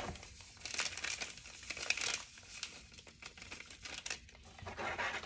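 Packet of strawberry gelatin powder crinkling in the hand as the powder is shaken out into a bowl, a run of irregular crackles.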